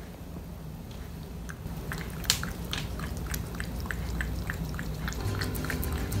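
A cat eating flaked wet cat food from a plastic plate: wet chewing and smacking clicks, about three or four a second, with one louder click a couple of seconds in. Background music comes in near the end.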